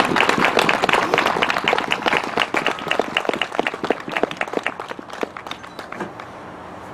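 Audience applauding, many hands clapping, thinning out to a few scattered claps and dying away near the end.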